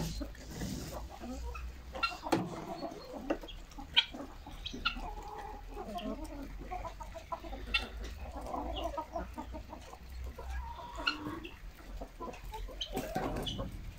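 A flock of chickens clucking, with a few sharp clicks scattered among the calls.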